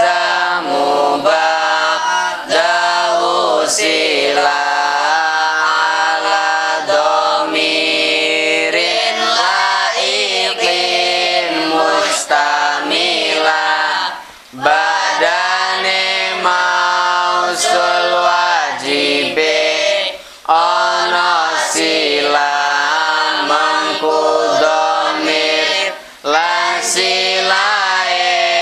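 A class of boys chanting Arabic verse together in unison to a sung melody, with short breaks for breath between lines.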